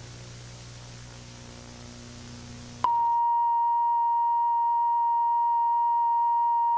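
A low electrical hum with hiss from a dead broadcast feed. Nearly three seconds in, a steady, single-pitched test tone cuts in abruptly and holds. Together they are the sound of a television transmission dropping out mid-broadcast.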